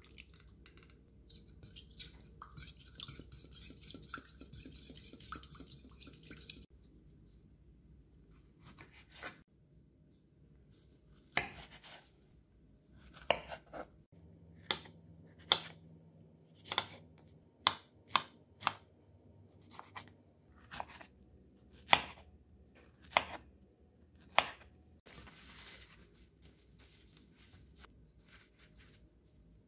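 A kitchen knife cutting the tops off strawberries on a wooden cutting board: about a dozen sharp, irregularly spaced knocks through the middle stretch. Before that, hot water is poured into a glass measuring cup with a steady hiss, and near the end a paper towel rustles briefly as it is spread out.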